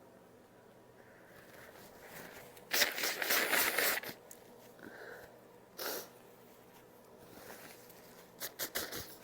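A woman blowing her nose hard into a tissue, one loud fluttering blast lasting just over a second, followed by a few short sniffs.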